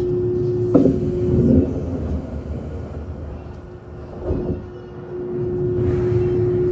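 Izuhakone Railway 5000-series electric train standing at the platform, heard from inside the car. A steady hum from its equipment is broken by a sharp clunk about a second in, after which it is quieter, and a second knock follows about four seconds in. The hum returns near the end.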